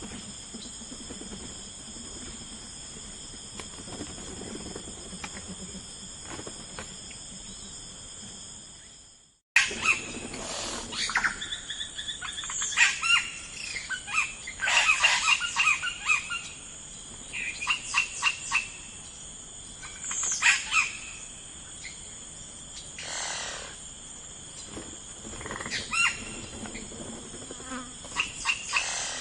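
A steady, high-pitched insect chorus that fades out about nine seconds in. After a moment of silence, songbirds chirp and sing in short phrases over a fainter insect drone.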